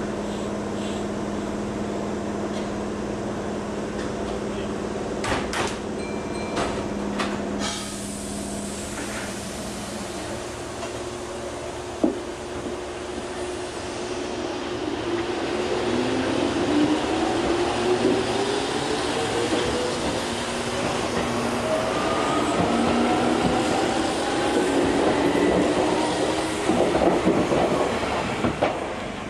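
Keihan electric train starting off: a steady electrical hum, a few sharp clicks, then a motor whine that rises slowly in pitch as the train picks up speed.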